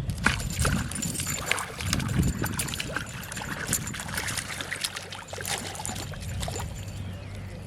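Water splashing and trickling, with many irregular small clicks and knocks.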